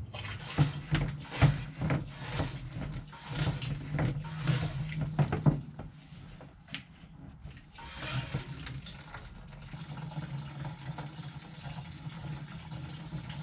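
Gasoline running out of a siphon hose from a fuel tank, gurgling and splashing in irregular surges for the first half, then flowing more steadily and quietly: the siphon has caught and fuel is flowing.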